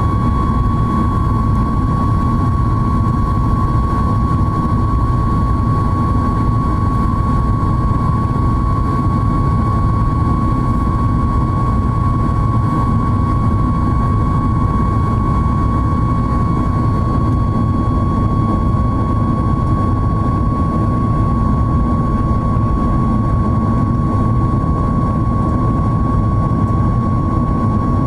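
Boeing 737-8 MAX at cruise, heard from inside the cabin: the steady rumble of its CFM LEAP-1B engines and airflow, with a constant high whine over it.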